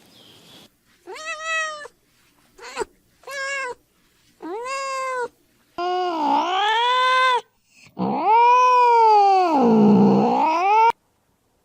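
A cat meowing repeatedly: about seven meows, short ones at first, then two long drawn-out meows whose pitch dips and rises again. The sound cuts off abruptly near the end.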